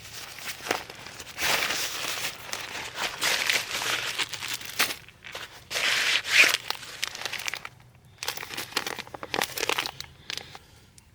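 Wrapping being crinkled and crumpled by hand in irregular bursts, with short pauses about halfway through and at about eight seconds.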